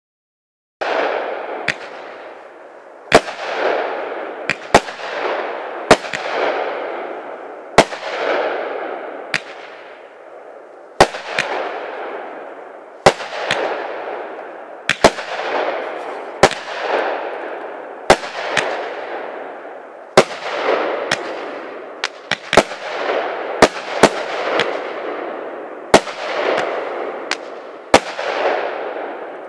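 Caliber Storm Chaser 200 g consumer fireworks cake firing its shots: sharp bangs every second or two, each followed by a fading hiss. The firing starts about a second in, after silence.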